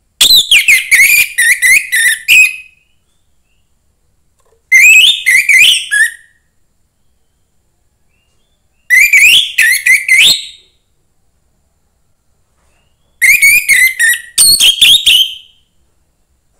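A young wild orange-headed thrush singing: four loud phrases of rapid, quickly rising and falling whistled notes, each lasting one and a half to two and a half seconds, with a few seconds of silence between them.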